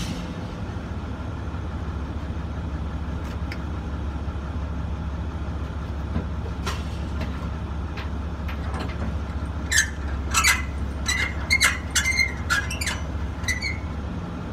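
Truck engine idling with a steady low rumble. Near the end comes a quick cluster of sharp clicks and short high chirps.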